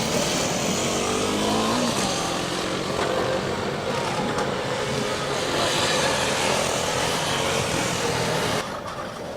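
Several Kawasaki KLX250-based military reconnaissance motorcycles, water-cooled single-cylinder four-strokes, running and revving, their engine pitch rising and falling. The sound drops off suddenly near the end.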